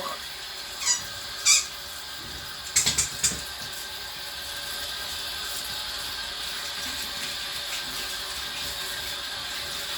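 Water running steadily from a tap, with a few short squeaks from a rubber squeaky dog toy being handled in the first three seconds or so.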